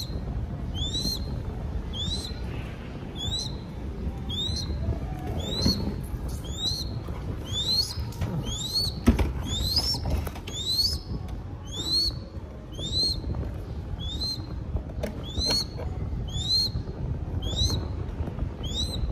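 Crested goshawk chick giving short, high, upward-sliding squeals, about one a second: food-begging calls of a nestling hawk. A single sharp knock sounds about halfway through.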